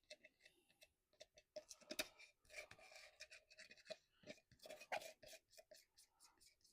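Faint scraping with irregular clicks and scratches: epoxy resin being scraped out of a container, with louder scrapes about two and five seconds in.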